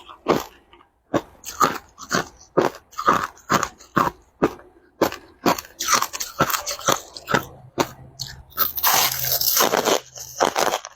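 Crushed ice being chewed and crunched between the teeth: a run of sharp crunches, about two a second, with a denser, louder stretch of grinding crunches near the end.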